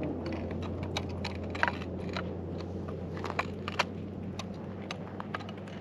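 Irregular sharp clicks and crackles, a dozen or so, the loudest about a second and a half in and near four seconds in, over a steady low hum.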